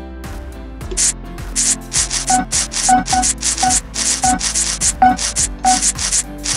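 Scratch-off sound effect of an online scratchcard game: quick rasping scratch strokes, about three a second, with short pitched blips between them, over a steady background music loop.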